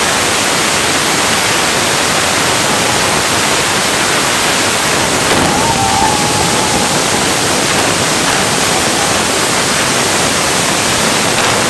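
A carpet of ground fireworks, many set pieces burning at once, giving a loud, steady hissing rush of sparks. A faint whistle sounds briefly about six seconds in.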